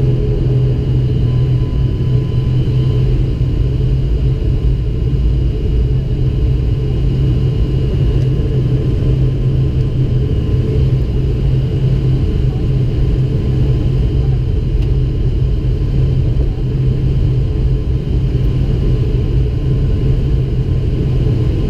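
Steady drone of an ATR 72-500's Pratt & Whitney PW127 turboprop engines and propellers at taxi power, heard inside the cabin: a deep, even hum with a strong low tone.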